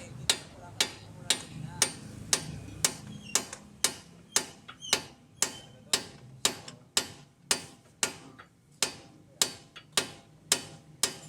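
Hammer striking metal in a steady rhythm, about two blows a second, each with a short metallic ring, during shock absorber replacement under a car.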